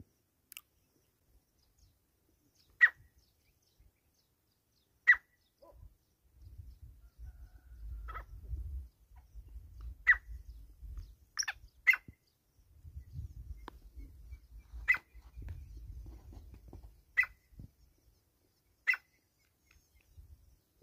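Male black francolin giving short, sharp single call notes, roughly one every two seconds, with two in quick succession near the middle. A low rumble comes and goes between the calls.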